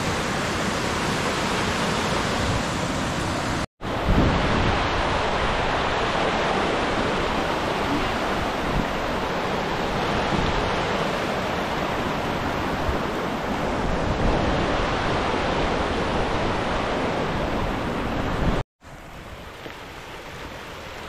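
Steady, loud rushing noise with no tones in it, cut off abruptly twice; after the second cut a quieter rush continues.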